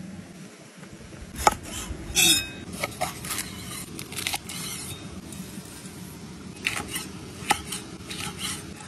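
A cleaver chopping a red pepper on a thick wooden cutting board: a run of sharp, irregular knocks as the blade strikes the wood, over a steady low rushing background.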